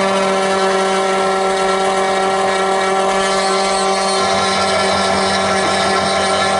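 SEC-E9 key cutting machine running steadily as its cutter mills the second side of a BMW Mini HU92 key blade, a constant mechanical hum with several held tones.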